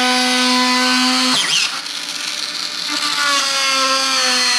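Cordless Dremel rotary tool with a right-angle attachment running, its bit cutting a slot in plywood. The motor's steady whine drops out with a quick downward sweep about a third of the way in, goes quieter and rougher for a moment, and then picks up again.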